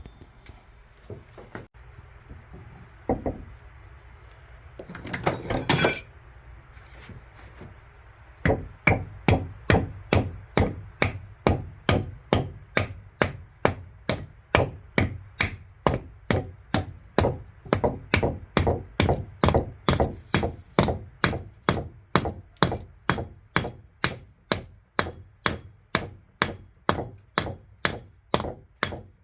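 Hand hammering in a steady rhythm, about two blows a second, each a sharp strike with a short ring. Before it come a few scattered knocks and a brief louder scraping noise.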